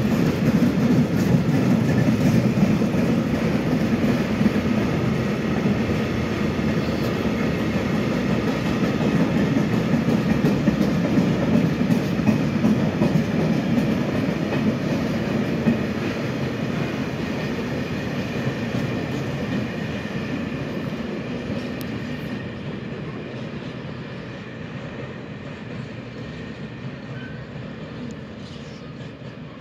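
Freight train of empty grain hopper wagons rolling past, the wheels clacking over the rail joints in a steady rolling rumble. The sound fades over the last ten seconds or so as the end of the train draws away.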